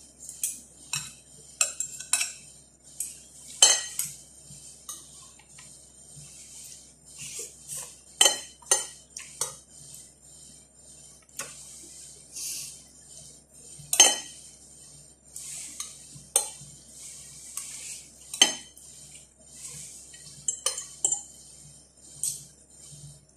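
Cutlery clinking and scraping on a plate while eating, in irregular sharp taps with short scrapes between them; the loudest clinks come about 4, 8, 14 and 18 seconds in.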